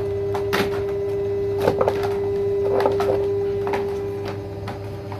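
Red plastic Honda CD70 side cover clicking and creaking as it flexes under a man's full weight without breaking, then knocking as it is lifted and handled: a string of short sharp clicks over a steady hum.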